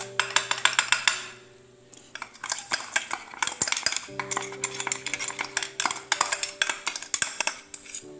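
A spoon stirring and scraping coarsely ground moong dal in ghee in a pan, in quick repeated strokes, with a brief pause after about a second.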